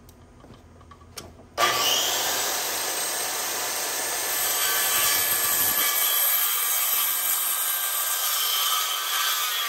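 RIDGID circular saw crosscutting a 2x6 joist to final length. The blade noise starts suddenly about a second and a half in and then holds steady as it cuts through the board.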